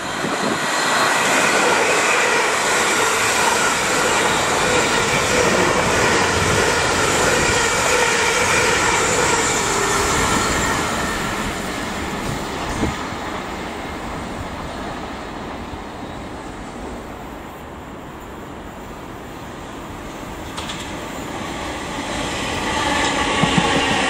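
South Western Railway Class 450 Desiro electric multiple unit running along the track: the rumble of wheels on rail with a steady whine, loud for the first ten seconds or so and then fading. Near the end a second electric train on another track grows louder as it passes.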